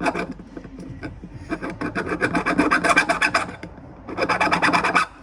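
Rapid, rhythmic rasping from a hand tool being worked on a metal fitting, about ten strokes a second, in two runs: a longer, louder run and then a shorter one near the end.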